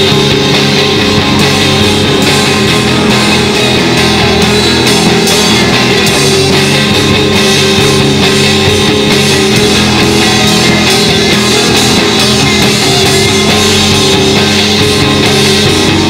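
Loud rock music with electric guitar and drums.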